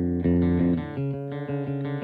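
Instrumental background music led by plucked guitar with bass; about a second in it moves to a quicker run of repeated plucked notes.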